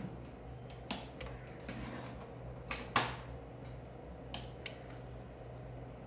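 A few short sharp clicks as a V-Guard VSDI 50 voltage stabilizer is switched on, the loudest about three seconds in, over a faint steady low hum.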